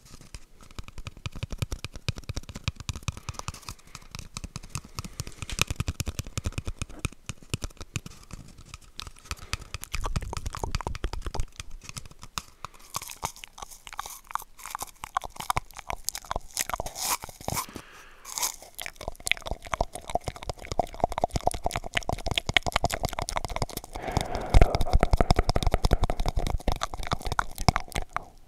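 Wet mouth sounds made into a cardboard toilet-paper roll held against the microphone: a dense run of quick clicks and smacks, louder in the last few seconds.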